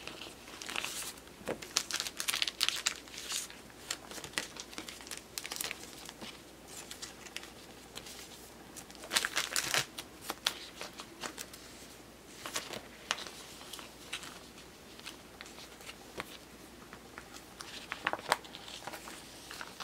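Clear plastic binder pocket pages and card sleeves crinkling and rustling as photocards are slid in and out of them, in irregular bursts with louder flurries about halfway through and near the end.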